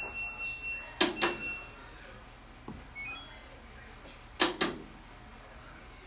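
LG top-load washing machine control panel giving short electronic beeps as its buttons are pressed: one at the start and two quick ones about three seconds in. Two loud sharp double clicks come about a second in and about four and a half seconds in.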